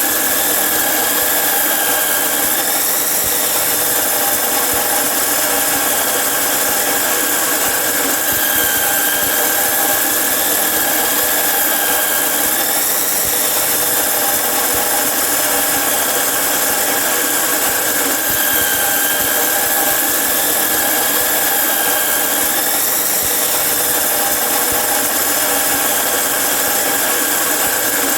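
Angle grinder cutting iron: a continuous high-pitched whine over grinding noise. Its pitch sags briefly about every five seconds, then recovers.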